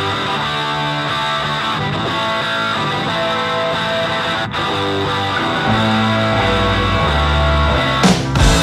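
Background music: an instrumental guitar passage with steady sustained notes. A heavier bass comes in about six seconds in, and sharp drum hits come in near the end.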